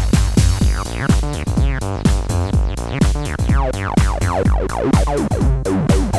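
Korg Monologue synthesizer playing a fast acid-house bassline of short notes, each with a quick downward filter sweep, driven through a Boss overdrive/distortion pedal, over a steady drum-machine beat.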